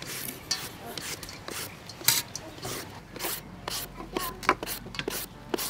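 Food being prepared by hand: irregular knife taps and clicks on a wooden chopping board, with light scraping of vegetables.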